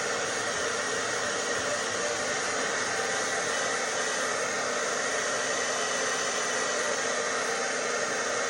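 Hand-held hair dryer blowing steadily at a constant speed.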